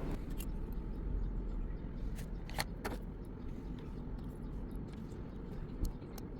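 A few short, sharp clicks of small metal parts and tools as the iPhone 11's connector cover plates are set back in place, over a steady low hum.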